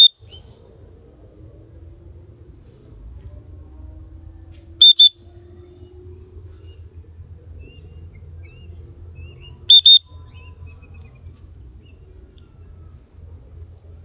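Loud double whistle, two short identical blasts, heard three times about five seconds apart, over a steady high-pitched chorus of crickets.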